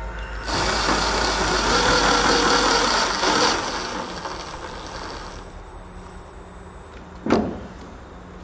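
Cordless Milwaukee impact driver driving a half-inch #8 stainless sheet-metal screw through aluminium mesh into a truck fender: a loud hammering rattle for about three seconds, then quieter running with a thin high whine that stops about seven seconds in, followed by a single sharp knock.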